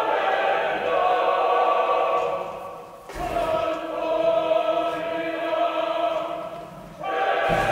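Choral film music: a choir holding long sustained chords over an orchestral backing. The phrases break off briefly about three seconds in and again near the end.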